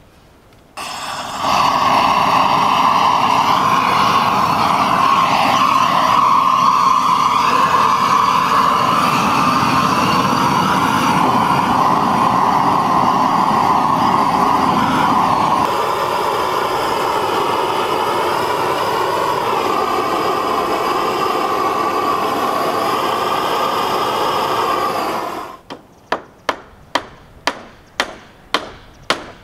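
Electric paint-spray unit's motor running with a steady whine while a plank barn wall is sprayed; it cuts off near the end. Then come quick sharp knocks of hammering on wood, about three a second.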